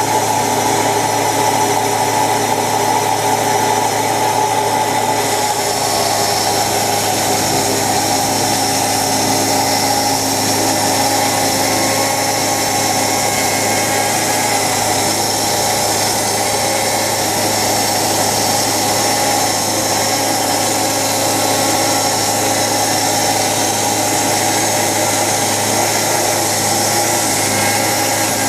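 Timber Harvester band sawmill running steadily on its engine, making its first cut along a log. A higher hiss joins the engine sound about five seconds in.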